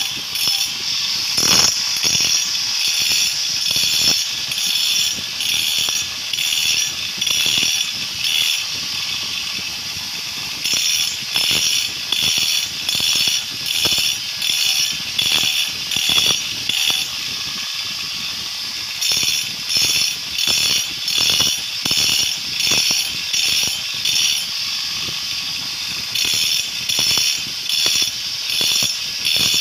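Angle grinder running against a flour-mill millstone in short repeated strokes, roughly two a second, with a few stretches of steadier grinding. It is roughening (dressing) the stone's grinding face so the mill turns out coarser maize flour instead of flour that comes out too smooth.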